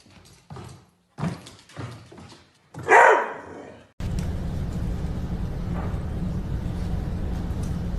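A dog barking in a string of short barks, the loudest about three seconds in. Halfway through it cuts off abruptly to a steady low hum with hiss.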